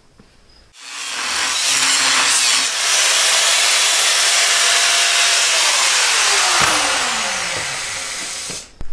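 Corded angle grinder starting about a second in and cutting a steel plate, a loud, even hiss of metal. From about six seconds in it is let off and spins down, its whine falling in pitch until it stops near the end.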